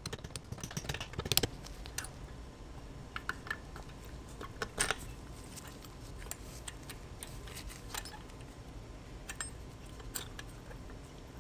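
Light, irregular metal taps and clinks of a hammer and punch driving out the rear brake caliper's pad retaining pins, with a few quick taps close together about a second in and scattered ones after.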